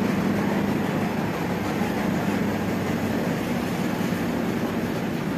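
Steady hum and hiss of a supermarket's air conditioning and refrigeration, with a constant low drone.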